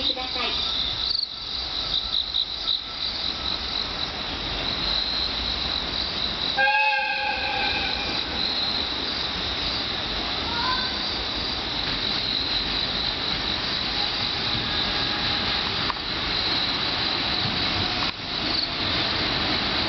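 Insects chirping steadily in a dense chorus. About seven seconds in, a distant train horn sounds once for about a second, as an electric locomotive approaches the station.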